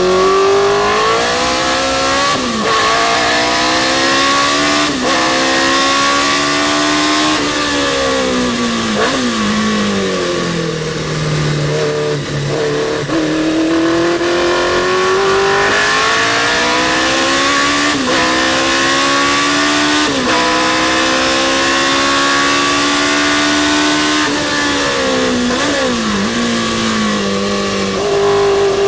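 Racing car engine running hard under acceleration, its pitch climbing and dropping sharply at each upshift, twice falling away for a few seconds under braking and downshifts before climbing again.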